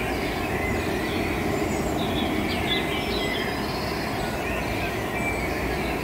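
Steady outdoor background noise, a low hiss and rumble, with a few faint bird chirps and short calls in the middle.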